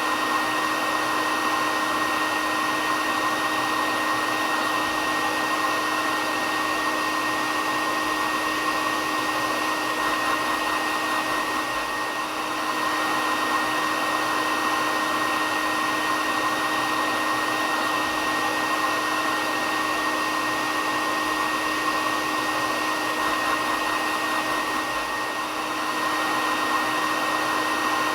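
Hair dryer running steadily: a constant rushing blow with a steady motor whine, looped as white noise for baby sleep.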